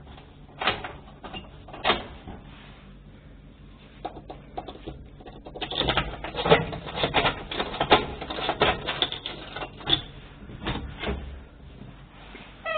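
Irregular dry clicks and taps, scattered at first, then coming thick and fast from about six to ten seconds in.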